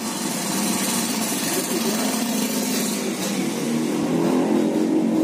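Corded electric hair clippers buzzing steadily as they cut hair along the side of the head, a little louder in the last second or so.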